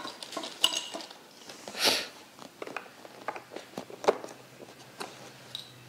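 Small plastic pipe pieces clicking and clattering as they are handled and set down, in scattered irregular knocks, with a short crinkle of a plastic bag about two seconds in.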